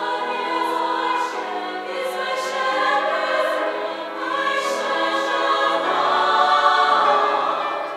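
Women's choir singing slow, long-held phrases of a sacred song, growing louder near the end of the phrase and then easing off.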